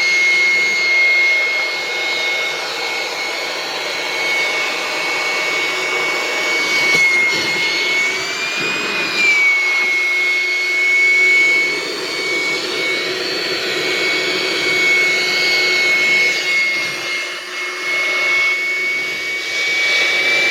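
Electric air pump running steadily, inflating an air mattress, with a constant high whine over a blowing hiss; the pitch wavers briefly about eight seconds in.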